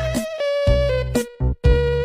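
Electronic background music with a pulsing beat and held synth tones, briefly cutting out about one and a half seconds in.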